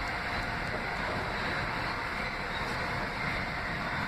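New York City subway train approaching along the track into the station: a steady noise of wheels running on the rails.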